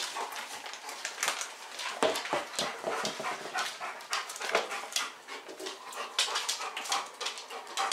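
A dog panting and snuffling in quick, uneven breaths.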